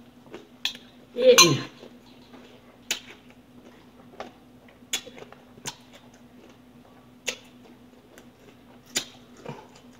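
Eating utensils clicking and scraping against a bowl in scattered sharp taps over a steady low hum. A short vocal sound comes a little over a second in.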